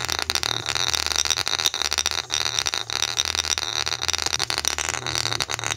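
JBL portable speaker playing deep bass at full volume, the low notes changing every half second or so, with a heavy rattling buzz over them from the overdriven speaker and a golf ball bouncing on its passive bass radiator.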